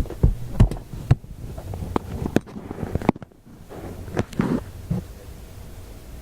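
Irregular clicks, knocks and light rustles of small parts and tools being handled, the sharpest knocks in the first second.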